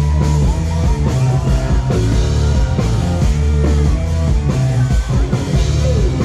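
Live rock band playing loud through a stage PA: drum kit, bass guitar and electric guitars.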